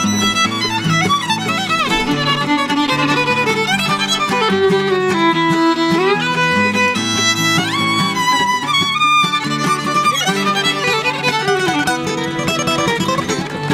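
Fiddle taking an instrumental break in a bluegrass song, its melody sliding up and down between notes, over mandolin and acoustic guitar accompaniment.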